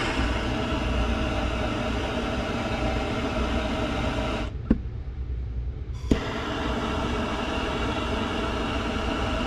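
Small handheld gas torch jetting a flame with a steady hissing rush, used to shrink heat-shrink tubing over a crimped wire joint. It is shut off with a click about four and a half seconds in and relit with another click about a second and a half later.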